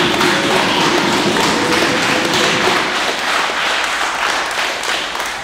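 Many people clapping fast, mixed with the smacks of jiu-jitsu belts lashing a newly promoted student in a promotion gauntlet; a dense run of sharp claps and slaps that eases off a little after about three seconds.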